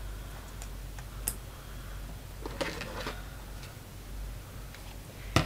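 Small clicks and rustles of hands working thread around a cloth doll's felt boots, with metal scissors handled and snipping the thread. A sharper clack comes right at the end.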